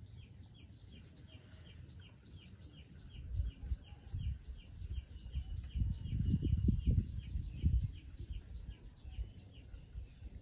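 A bird calling with a steady run of short high chirps, about three to four a second. Under it, an uneven low rumble on the microphone swells a little past the middle.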